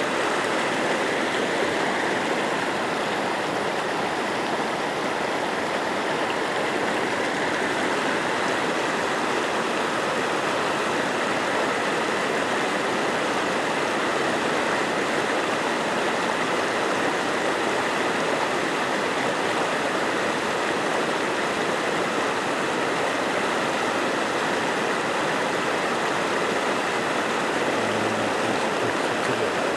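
Shallow river rushing over rocks in small rapids: a steady, even rush of water.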